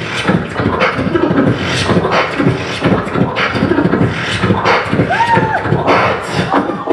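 A man beatboxing into a handheld microphone: a fast, dense run of vocal kick-drum, snare and hi-hat sounds, with a short rising-and-falling pitched vocal tone about five seconds in.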